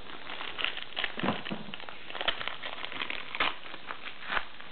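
Foil wrapper of a trading-card pack crinkling and crackling in the hands as it is peeled open, in many irregular short crackles.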